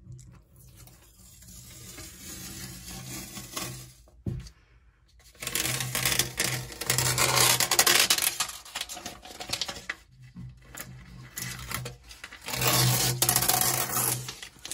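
Paper shelf liner being peeled and torn off a rough particle-board shelf by hand, in a run of rips with short pauses. The two loudest pulls come about halfway through and again near the end.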